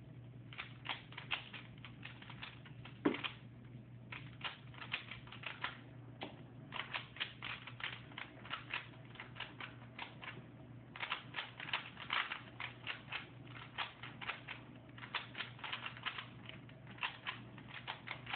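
3x3 Rubik's cube being turned fast during a solve: runs of quick plastic clicks as the layers snap round, broken by short pauses, with one louder knock about three seconds in.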